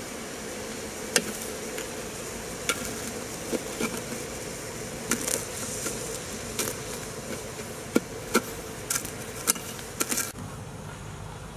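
Syrup at a rolling boil in an aluminium pot, a steady bubbling hiss, while a metal spoon stirs it and clicks against the pot about a dozen times at irregular moments. The hiss thins out about ten seconds in.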